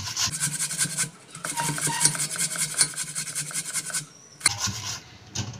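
Raw peeled potato grated on the coarse side of a metal box grater in quick, repeated rasping strokes, with a short pause about a second in. The grating stops about four seconds in, and a single knock follows.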